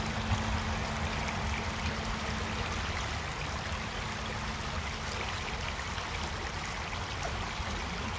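Creek water flowing and rippling over rocks: a steady, unbroken rush, with a low rumble underneath.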